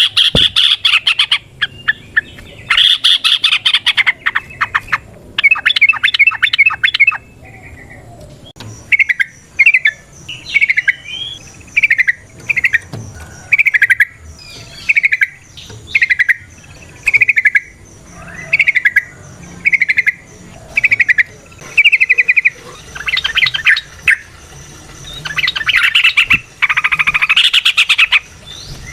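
Yellow-vented bulbul (trucukan) singing: fast bubbling chatter at first, then a run of about a dozen short sliding notes about one a second, then dense chattering again near the end.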